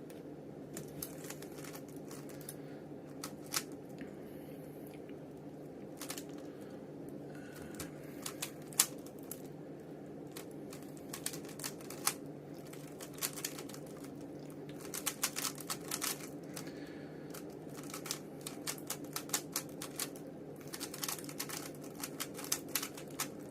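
Rubik's cube being turned quickly during a solve: irregular sharp plastic clicks and clacks as the layers turn, sparse at first and coming thicker in the second half, over a steady low hum.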